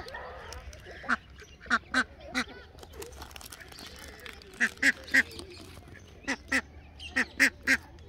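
Domestic ducks quacking: about a dozen short, loud quacks in clusters of two to four, a few seconds apart.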